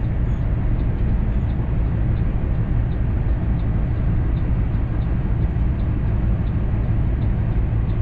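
Cummins ISX diesel engine of a Kenworth W900L idling, heard from inside the cab as a steady low drone. Faint regular ticking about twice a second runs alongside it.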